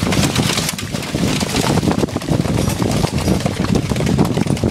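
Horse-drawn carriage pulled fast by a pair of horses over a rough forest track: a dense, loud rumble and rattle of the wheels and carriage, with the horses' hoofbeats mixed in.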